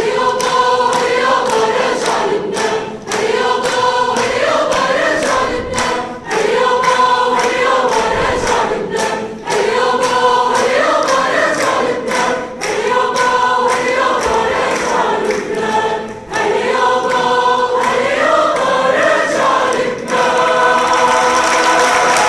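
Choir singing in short repeated phrases, each a few seconds long with a brief breath between them, ending on a held chord near the end.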